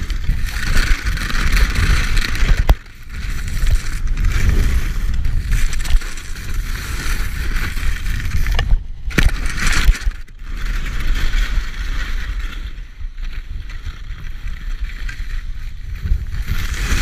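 Skis sliding and scraping over snow in a steady hiss during a downhill run, with wind buffeting the microphone in a low rumble. The hiss breaks off briefly about three seconds in and twice more around nine and ten seconds.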